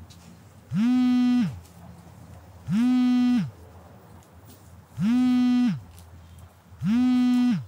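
Smartphone vibrating on a tabletop for an incoming call: four buzzes about two seconds apart, each rising quickly in pitch as the vibration motor spins up, holding steady, then sliding down as it stops.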